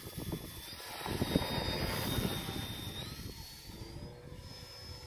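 Electric motor and propeller of a Mercury Galahad model aeroplane whining in flight. The sound swells as the plane passes low over the first couple of seconds, and the whine climbs in pitch about three seconds in.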